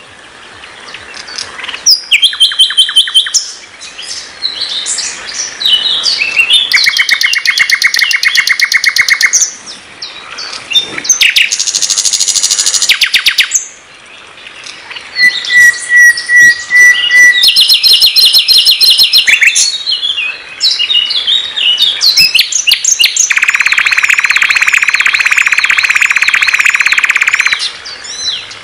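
A nightingale (sikatan londo) singing its varied song: phrases of fast repeated notes and trills with short pauses between them, a run of clear whistles on one pitch about halfway through, and a long, loud rapid trill near the end.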